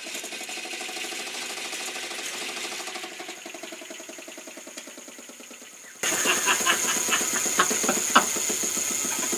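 Electric scooter motor, run with no speed controller, spinning a wheel through a chain transmission. A fast, even clatter of chain and gears swells and then fades. About six seconds in the motor kicks in again, louder, with a high steady whine over the rattle.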